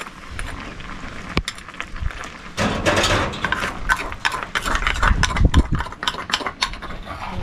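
Metal spoon scraping and clinking inside a wooden mortar as mashed garlic is scooped out, a run of quick irregular clicks and scrapes.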